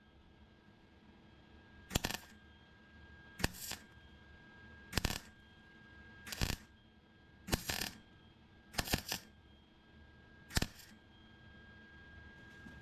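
MIG welder laying a string of quick tack welds along a crack in a Fox-body Mustang's steel firewall: seven short bursts of arc, about one every second and a half.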